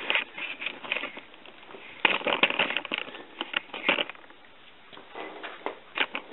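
Metal tools and parts being handled during wheel work on a car: a run of clicks and rattling clatter, busiest about two seconds in.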